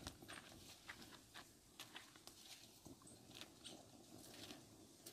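Faint, irregular crackles and clicks from cashew nuts in the shell roasting on a smoking metal sheet over an open fire while they are stirred.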